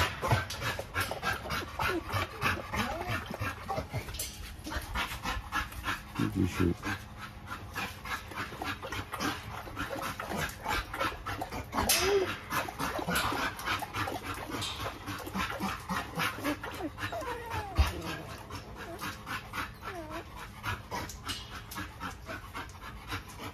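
XL pit bull panting rapidly up close, with a few short whines.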